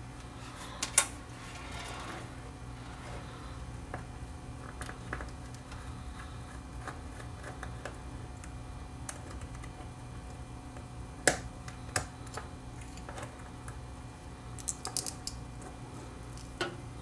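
Small clicks and taps of a turntable headshell and cartridge being handled as the cartridge's mounting screws are taken out, with sharper ticks about a second in, twice around eleven to twelve seconds and a quick cluster near fifteen seconds. A steady low hum runs underneath.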